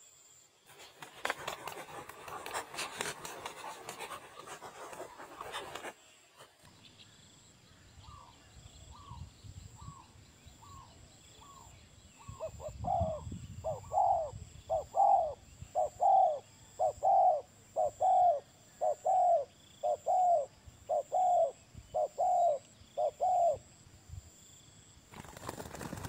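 Dove calling: a long run of short, evenly spaced coos, about three every two seconds, faint at first and much louder from about halfway, stopping shortly before the end. Before the calls, a few seconds of rustling noise.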